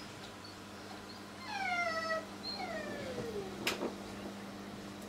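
A house cat meowing twice, each call falling in pitch, over a steady low hum; a sharp click comes just after the second meow.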